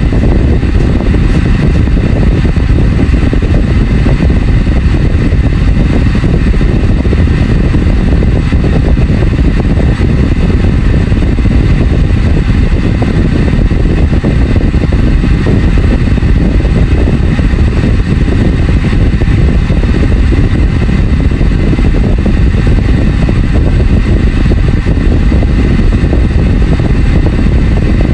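Liquid boiling hard in a glass-lidded pan of shrimp: a loud, steady bubbling.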